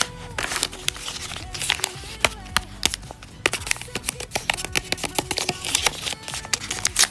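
Hands handling and crinkling plastic blind-bag packaging, a dense run of sharp crackles, taps and clicks.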